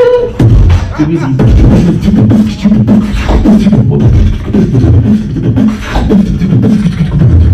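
Beatboxing into a handheld microphone: a fast run of deep bass kicks and sharp snare-like clicks, with a hummed low tone woven in underneath.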